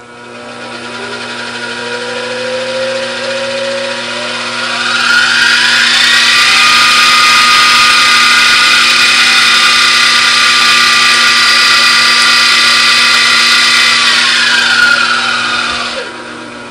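Grizzly G0704 milling machine's variable-speed spindle running as its newly replaced speed potentiometer is tested. The whine climbs in pitch over the first five seconds or so as the speed is turned up, holds steady at about 2000 rpm, then falls near the end as the speed is turned back down. This shows that the new speed control is working.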